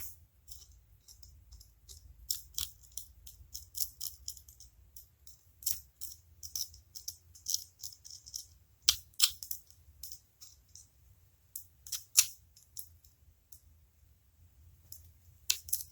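Irregular short scrapes and clicks of a hand tool cleaning dirt and crud from around the valve cover bolts of an old V8 engine, so a wrench can get onto them, with a few sharper scrapes about 6, 9 and 12 seconds in.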